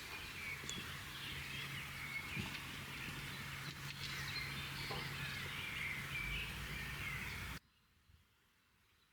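Outdoor ambience of birds chirping and singing, with a steady low hum underneath. It cuts off suddenly near the end.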